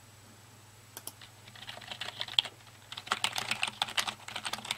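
Typing on a USB computer keyboard: a few single keystrokes about a second in, then a fast, dense clatter of key presses from about two seconds in.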